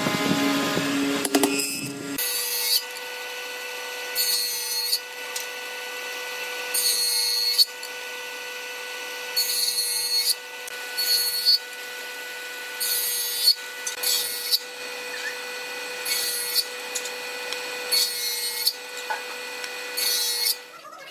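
Table saw running with a steady whine, its blade cutting through wood slats in about ten short bursts spaced roughly two seconds apart. Before that comes about two seconds of a denser machine hum from a chisel mortising machine.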